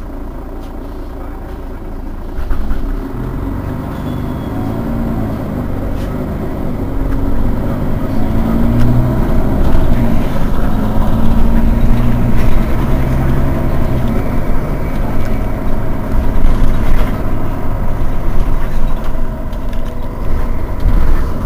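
Rear-mounted engine of a Mercedes-Benz Citaro bus idling at a standstill. It runs steadily, then grows louder from about a third of the way in.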